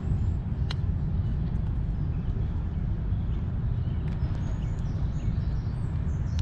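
Steady low outdoor rumble, with a few faint, short high chirps scattered through it.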